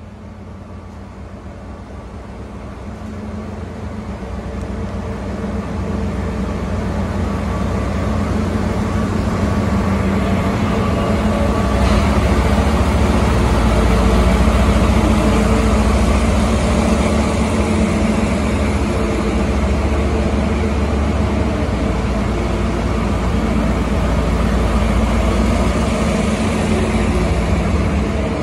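Twin diesel locomotives pulling a departing passenger train past at close range. Their engines make a deep, steady drone that grows louder over the first dozen seconds and then holds.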